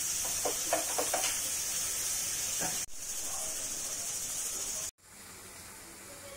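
Masala-coated fish steaks frying on a tawa: a steady sizzling hiss with a few crackling pops in the first second or so. Near the end the sizzle suddenly drops to a quieter level.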